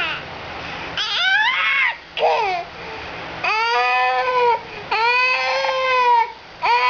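A baby making a string of drawn-out, whiny, dog-like cries, about five in all, each up to about a second long and arching up then down in pitch.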